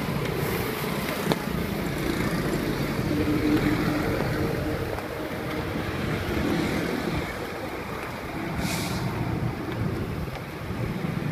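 Steady low rumble of street traffic with wind on the microphone, and a short hiss about nine seconds in.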